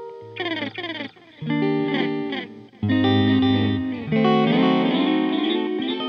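Clean electric guitar from a Fender Custom Shop 1956 Stratocaster played through an Echoplex EP-3 tape echo unit. It plays a lead phrase of picked single notes: a quick falling run in the first second, then melodic notes with a loud low note about halfway through, left ringing.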